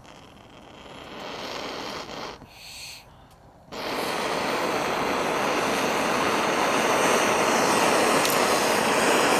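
Propane torch: a soft gas hiss, then the flame comes on suddenly about a third of the way in and runs with a steady, loud rushing noise that slowly grows louder.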